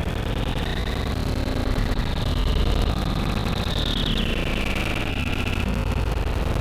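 Road traffic: a steady low rumble of passing vehicles, with a whine that falls in pitch about four seconds in as one goes by.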